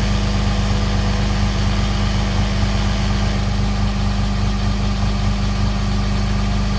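Pickup truck engine idling steadily, a low even hum with no change in pitch.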